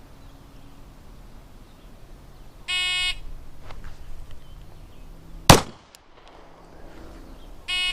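Shot timer's start beep, then about two and a half seconds later a single 9mm shot from a Glock 19 pistol, and the timer's par-time beep near the end, five seconds after the start beep.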